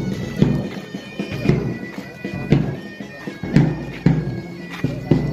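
Bagpipe and drum music: steady held pipe tones carrying a tune over regular drum beats about twice a second.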